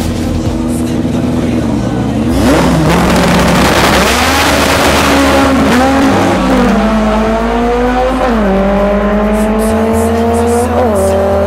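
Volkswagen Beetle drag car's engine running steadily at the start line, then launching about two seconds in with a loud rush of noise and accelerating hard down the strip. Its pitch climbs, drops sharply at a gear shift, and climbs again, twice.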